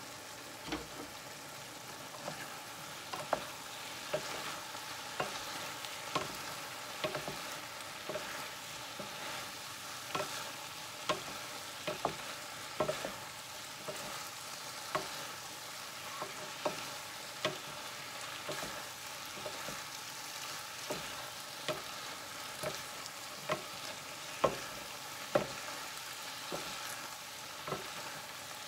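Mixed vegetables frying in olive oil in a pan, a steady sizzle, while two wooden spatulas toss them, knocking and scraping against the pan about once a second.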